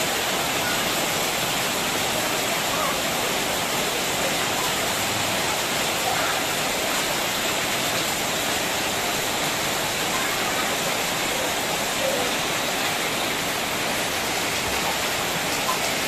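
Heavy rain pouring down, a steady, even hiss, with faint children's voices now and then.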